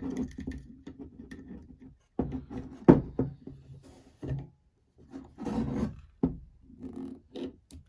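Small metal clicks and scrapes of needle-nose pliers working the tiny locking-pin spring into the steel frame of a Luger P08 pistol, with handling rubs against the frame and wooden table. The sharpest click comes about three seconds in.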